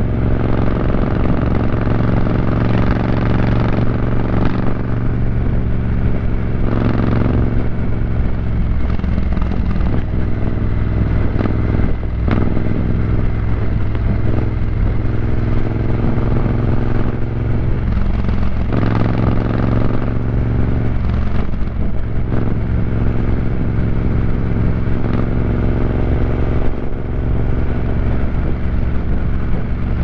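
Triumph Scrambler 900's parallel-twin engine breathing through a ZARD aftermarket exhaust, running steadily at highway cruising speed.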